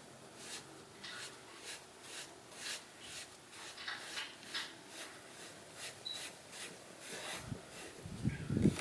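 Cloth applicator rubbing trim restorer back and forth into faded plastic car trim, in short even strokes about two a second. A few louder low thumps near the end.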